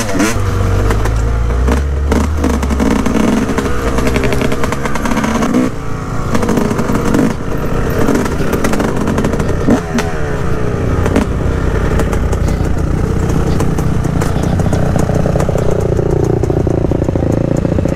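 Yamaha YZ250 dirt bike's engine running as it is ridden, heard from on the bike, its pitch rising and falling with the throttle.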